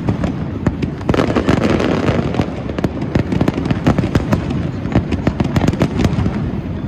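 Fireworks display: aerial shells bursting one after another, a dense, continuous run of bangs and crackles several times a second.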